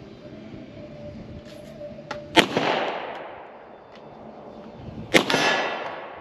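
Two 9mm shots from a Beretta Brigadier pistol, about three seconds apart, each followed by a long decaying tail.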